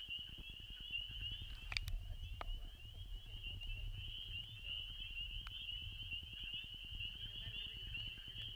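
Dense chorus of high-pitched frog calls, many overlapping short peeps, typical of spring peepers at a vernal pool, over a low rumble, with a few small clicks in the first half.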